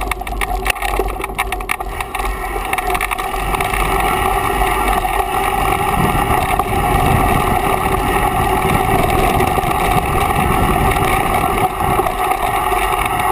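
Mountain bike descending a dirt trail, heard through a bike-mounted camera: steady wind rush over the microphone with the rumble of tyres on dirt and the bike rattling over bumps, sharpest in the first couple of seconds.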